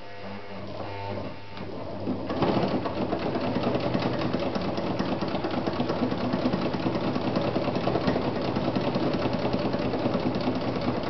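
Vesna Bagat 703 sewing machine, a cast-iron machine with a 100-watt motor, sewing through a thick baseball-cap visor. For the first two seconds or so its motor hums at low speed. Then it picks up speed and stitches steadily with a rapid mechanical ticking.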